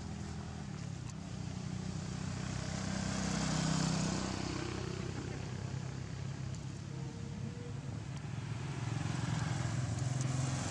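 An engine running in the background, a steady low hum that swells louder about four seconds in and again near the end.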